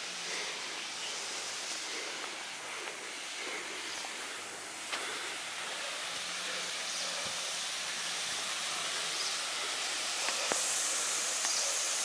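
Steady rushing hiss of a tall waterfall's falling water, slowly growing louder as it is approached.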